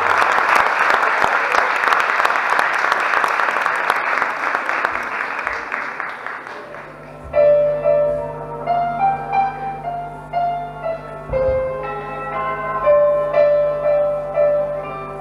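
Audience applause fading away over the first six seconds or so. About seven seconds in, piano music begins: a slow melody of single notes over a held low note.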